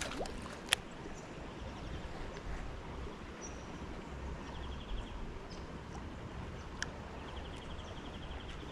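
Steady rush of river water over a low rumble, with two sharp clicks, the first about a second in and a smaller one near seven seconds. A rapid high trill sounds twice, midway and near the end.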